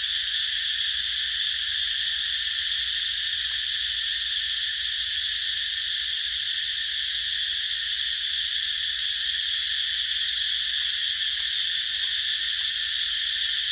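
Cicadas calling in a dense, unbroken chorus: a steady, high buzzing drone that never lets up.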